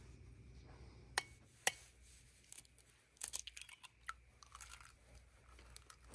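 Scattered light clicks and clinks of metal cookware and utensils being handled at a camp stove, two sharp ones about a second in and a quick cluster about halfway, over a faint low hum.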